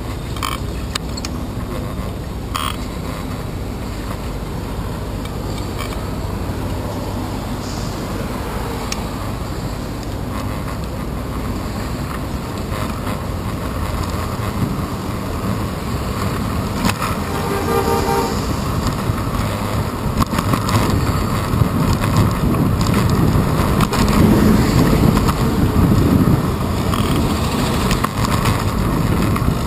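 City street traffic heard from a moving bicycle: a steady rumble of engines and tyres. A horn sounds briefly a little past halfway, and the rumble grows louder over the last third as a city bus runs close alongside.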